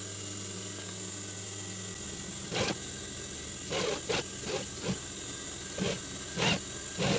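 Industrial sewing machine stitching mesh cap panels together in short bursts, about seven quick runs over the last five seconds. Its motor hums steadily beforehand.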